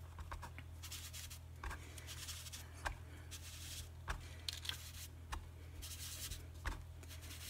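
Ink sponge dabbing and rubbing ink onto cardstock around a paper butterfly template: soft scratchy rubbing with short taps about once a second, over a steady low electrical hum.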